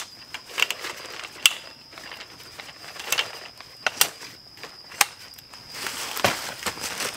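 Folding camp chair being opened: its fabric rustles and flaps, and several sharp clicks come from the frame as it unfolds, with a burst of rustling near the end. A steady high insect drone runs underneath.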